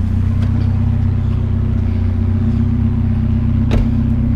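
Truck engine idling steadily, with a single sharp knock a little under four seconds in.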